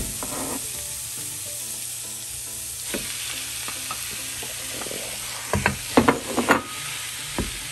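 Sliced leeks sizzling in a hot frying pan, a steady hiss. A wooden spatula knocks and scrapes in the pan, a few sharp knocks at first and then a loud cluster about three quarters of the way through as ground beef is added and stirred in.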